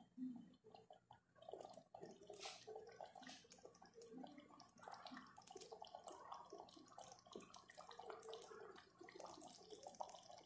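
Faint, irregular bubbling and popping of a thick chicken-and-bean stew simmering on low heat in a stainless steel pot.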